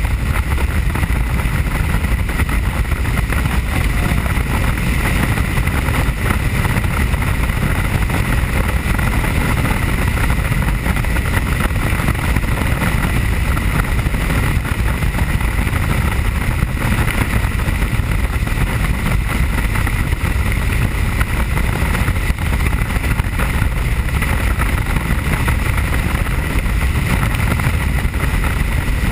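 Helicopter in flight heard from inside the cabin: loud, steady engine and rotor noise with a steady high whine running over it.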